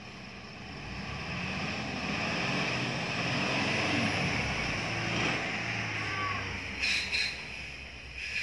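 Box truck engine labouring under load on a steep climb, its revs rising and wavering as it fails to pull the truck up the grade. Two short sharp hisses come near the end.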